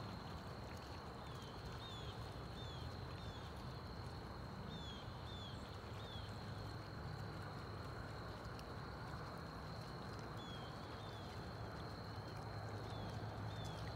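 Outdoor ambience: a steady low rumble under a steady high-pitched tone, with a bird repeating short falling chirps in runs of three or four, about two a second.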